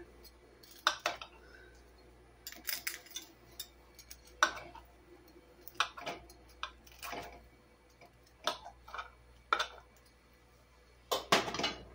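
A table knife cutting through a baked plantain casserole, its blade scraping and tapping against a glass baking dish in short, irregular strokes, one every second or two, with the loudest clack near the end.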